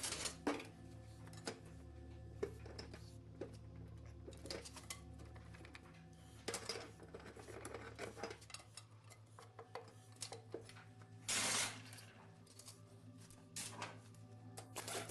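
Hand tools clinking and knocking on metal engine parts, with scattered sharp clicks and a longer scraping rasp about eleven seconds in, as the fuel injection pump is unbolted from the diesel engine. A steady low music drone runs underneath.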